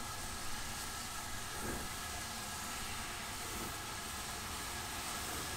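Steam locomotive hissing steadily as it eases slowly forward, with a low rumble underneath and no distinct exhaust beats.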